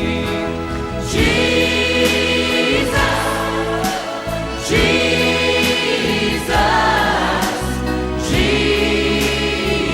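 Worship song with choir singing held notes over steady bass and instruments.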